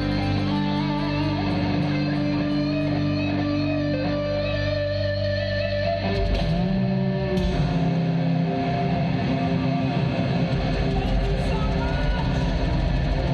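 Heavy metal band playing live, with electric guitars holding sustained notes; the low end fills out and thickens about six seconds in.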